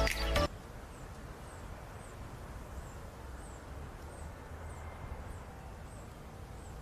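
Music cuts off abruptly about half a second in, leaving quiet outdoor ambience with a low background hum and a faint, very high chirp repeating about every half second.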